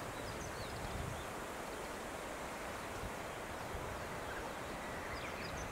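Outdoor ambience: a steady rustle of wind and leaves, with a few faint, short bird chirps about half a second in and again near the end.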